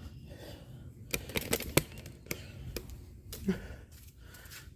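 A handful of sharp metallic clicks and knocks from the parts of a John Deere 43C front blade being handled and fitted under a lawn tractor, most of them bunched together between one and two seconds in.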